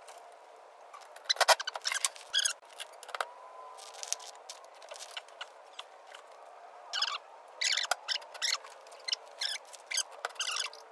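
Hand wrench working on bolts: irregular bursts of quick metallic clicks and light scrapes, bunched in two stretches, over a faint steady hum.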